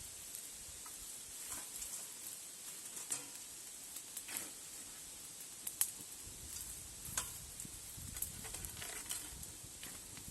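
Campfire burning, with a steady hiss and scattered sharp crackling pops of burning wood.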